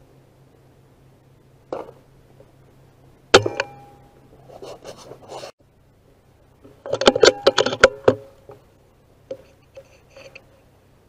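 A single shot from a Brocock BRK Ghost PCP air rifle about three seconds in, a sharp crack with a brief ringing tone after it, followed by rustling. Around seven seconds in comes a second-long run of loud clicks and rattles, then a few faint knocks.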